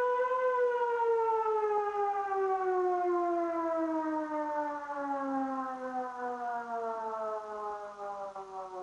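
Civil-defence warning siren sounding the Russian 'Attention everyone' signal: one wailing tone that wavers slightly, then slides slowly and steadily down in pitch as it winds down, fading a little toward the end.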